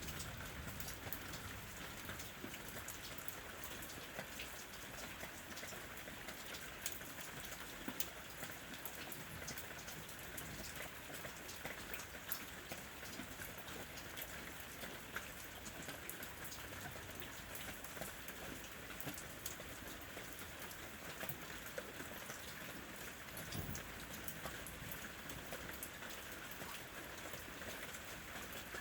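Steady rain falling, a continuous hiss with many separate drops pattering and ticking on surfaces.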